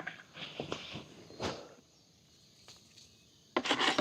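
Granular fertilizer being sprinkled onto garden plants: soft rustling and scraping, a short click about a second and a half in, and a louder rustle near the end.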